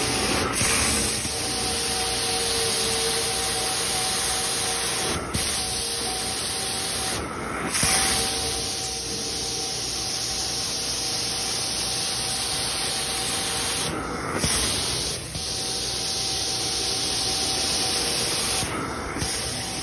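Hot-water carpet extraction wand spraying and sucking across carpet: a loud, steady rushing hiss of suction and spray with a faint steady motor whine under it. The hiss dips briefly a handful of times, at about 5, 7, 14, 15 and 19 seconds in.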